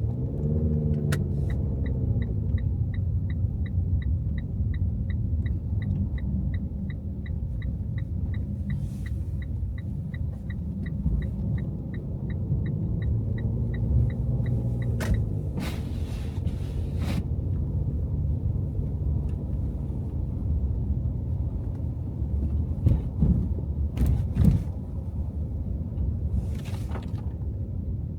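Car driving, a steady low rumble of engine and road noise, with a turn-signal indicator ticking about three times a second for the first half. In the second half a few sharp knocks sound over the rumble.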